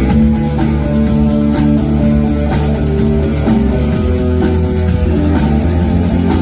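Rock band playing an instrumental passage: guitar over a steady bass line and drum kit.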